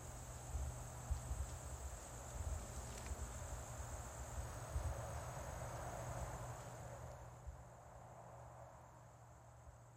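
Steady high-pitched insect chirring, with an uneven low rumble of microphone handling underneath. The whole sound drops in level about seven seconds in.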